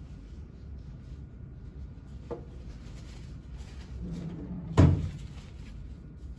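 A single sharp knock about five seconds in, with a lighter click about two seconds earlier, against quiet room noise and handling sounds.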